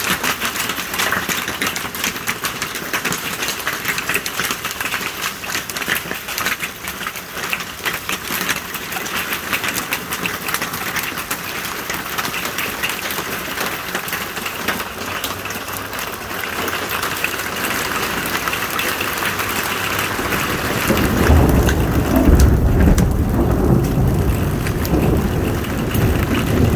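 Heavy rain and hail clattering down in a dense, steady patter of hits. About three quarters of the way through, a deep rumble of thunder rises and carries on to the end.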